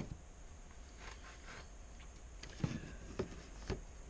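A few light knocks and clicks from handling a boxed camcorder, spaced about half a second apart in the second half, over faint room hiss.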